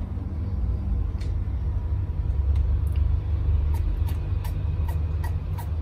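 Steady low rumble, with a series of light clicks and taps from the clear plastic hamster exercise ball being handled, starting about midway.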